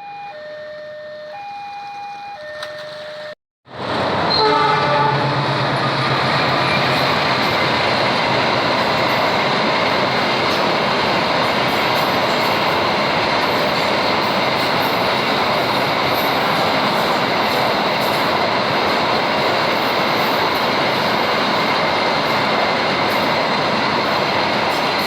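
Level-crossing warning alarm sounding an alternating two-tone signal. After a short cut, a container freight train passes close by: a horn blast as it arrives, then loud, steady wheel and rail noise from the passing wagons.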